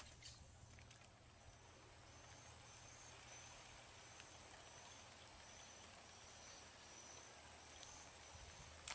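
Faint insect chorus: a steady high-pitched whine with short chirps repeating about every half second, over quiet open-field background. A sharp click sounds right at the start.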